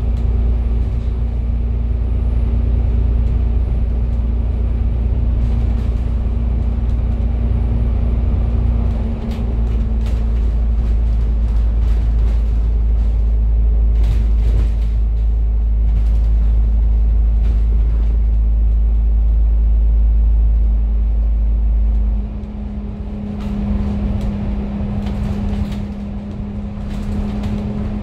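A Citybus bus driving along, heard from inside the cabin: a steady engine and drivetrain hum over a deep road rumble, with light rattles. About three-quarters of the way through, the deep rumble drops away and the sound grows lighter.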